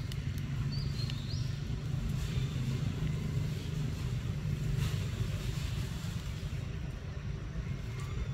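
Steady low outdoor rumble, with a few faint, high bird chirps about a second in.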